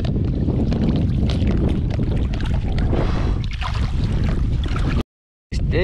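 Wind buffeting the microphone over water sloshing and splashing as a hooked fish is scooped into a rubber landing net, with many short splashes throughout. The sound cuts out completely for about half a second near the end.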